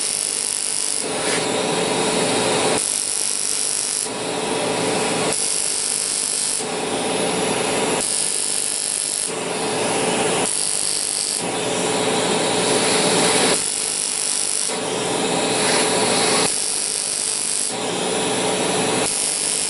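ProFractional erbium laser handpiece firing in bursts about a second long, roughly every two and a half seconds, over the steady whir of a smoke evacuator held at the skin.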